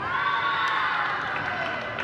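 Several high girls' voices cheering and shouting together as a volleyball point is won, held for about a second and a half.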